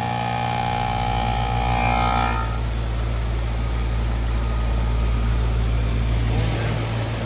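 GMC/Goodman heat pump outdoor unit running with a steady low compressor hum; a higher whine over it fades out about two and a half seconds in.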